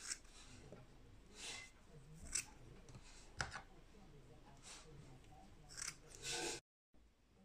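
Scissors snipping through curly synthetic braiding hair: six or seven separate cuts, irregularly spaced about a second apart. The sound cuts off abruptly near the end.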